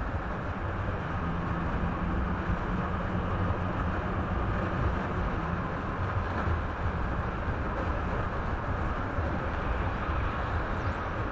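Steady road and tyre noise with a low engine hum inside a moving car, picked up by a dashcam in the cabin. The level stays even throughout, with no sudden sounds.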